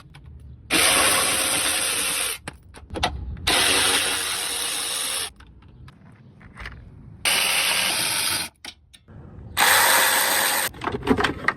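Impact wrench run in four bursts of one to two seconds each, spinning off the wheel's lug nuts to remove the tire.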